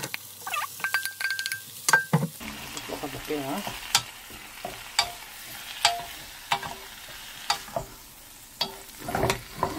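Blanched butterbur greens going into hot scallion oil in a pan and sizzling as they are stir-fried. A wooden spatula knocks and scrapes against the pan repeatedly.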